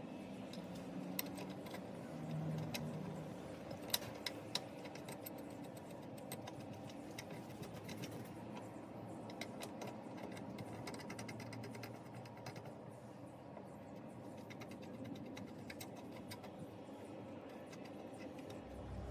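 Faint steady background noise with scattered light clicks and ticks, a few sharper clicks around four seconds in.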